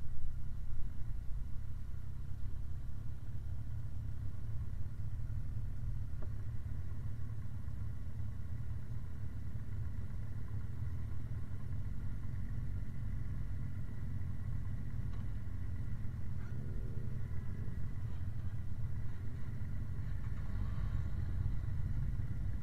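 Motorcycle engine running slowly and idling, a steady low rumble heard from a camera mounted on the bike. It is louder for the first second or two, then settles.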